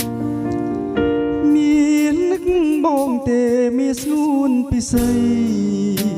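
A man singing with wavering vibrato into a handheld microphone, amplified through a MY 602 audio mixer, over a steady keyboard backing. The voice comes in about a second and a half in and breaks off about a second before the end, leaving the chords.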